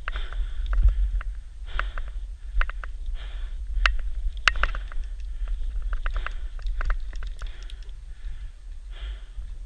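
A player breathing hard, with irregular sharp clicks and knocks from gear and movement over a low rumble.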